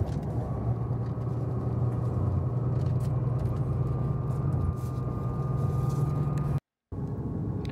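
Running noise of a KiHa 183 series diesel train heard from inside the carriage: a steady low engine drone with wheel and rail noise. A thin high tone joins about four seconds in, and the sound cuts out for a moment near the end.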